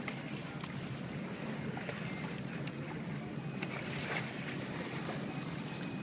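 Steady rush of wind and water aboard a sailing boat under way, with wind on the microphone and a few faint clicks.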